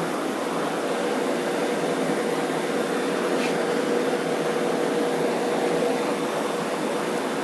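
Steady drone from a car's bad wheel bearings as the wheel turns, with a constant hum running through it.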